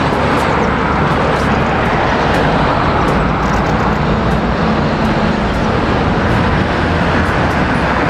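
Street traffic with a red double-decker city bus's engine running as the bus moves slowly past, cars going by in front of it. The sound is a steady rumble of engine and road noise.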